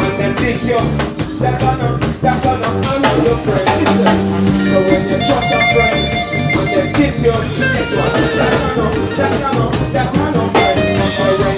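Live reggae band playing: electric guitars over a drum kit, with a singer on the microphone.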